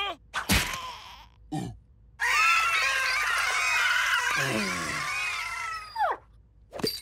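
Cartoon characters screaming together in shock for about three and a half seconds, several wavering voices at once, after a sharp hit about half a second in. A short falling whistle-like glide follows near the end.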